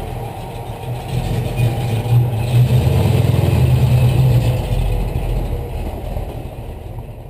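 Dodge Challenger R/T's 440 Magnum big-block V8 running at idle a minute or so after a cold start, its low exhaust burble swelling as the car rolls slowly past and then fading as it pulls away.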